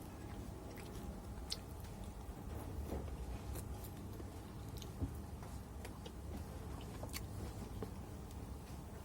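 Close-up chewing and biting of chicken, wet mouth sounds with scattered sharp crisp clicks over a steady low hum.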